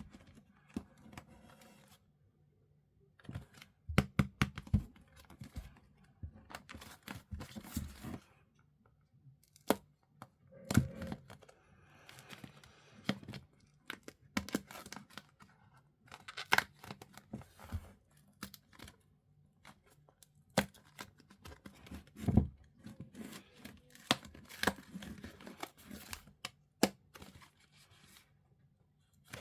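Plastic packaging and plastic airtight bags being torn open and handled: tearing and crinkling in irregular spells, with scattered sharp clicks and knocks and short quiet gaps between.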